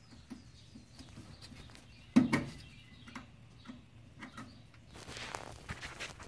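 Handling noise: scattered small clicks and taps, one loud knock about two seconds in, and a rustling near the end.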